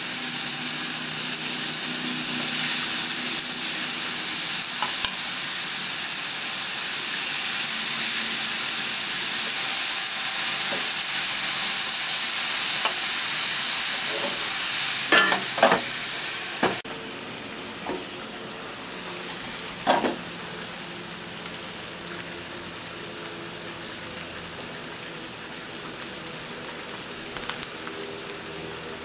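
Beef burger patties sizzling on a hot ridged grill plate: a steady hissing sizzle that drops suddenly to a quieter sizzle about 17 seconds in. A few short knocks sound about 15 and 20 seconds in.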